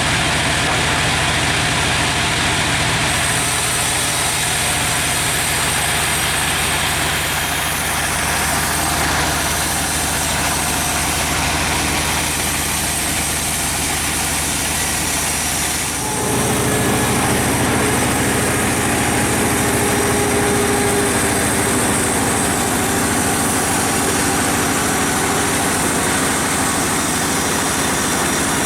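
Sawmill machinery running steadily: an engine hum with a hiss above it. About halfway through, the note changes suddenly and settles at a slightly different, steady pitch.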